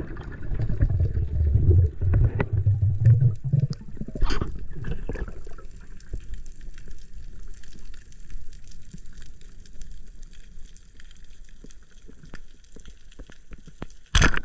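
Water around a skin diver: churning, bubbling water for the first few seconds, then a quieter stretch with scattered sharp clicks and crackle. A sudden loud burst just before the end.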